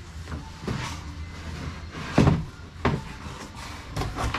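Wooden shipping-crate boards knocking and thudding as they are handled and set down on the crate, several separate knocks with the loudest a little past two seconds in.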